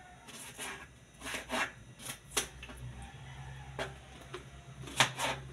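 Kitchen knife slicing through a thick-skinned melon and knocking against a plastic cutting board: a string of irregular short cuts and taps, the loudest about five seconds in.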